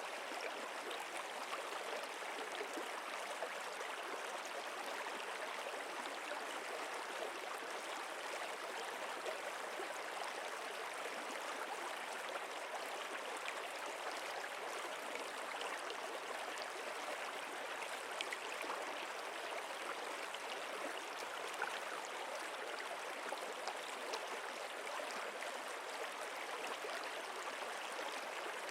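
Water of a stream or river flowing steadily, an even rushing sound with small splashes, unchanging throughout.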